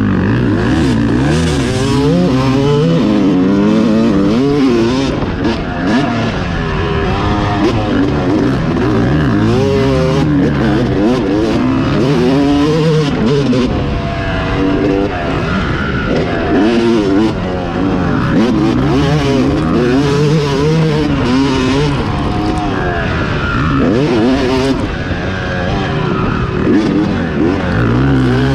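Yamaha YZ250 two-stroke dirt bike engine at race pace, heard from on the bike, revving up and dropping back over and over as the rider accelerates out of corners and rolls off the throttle.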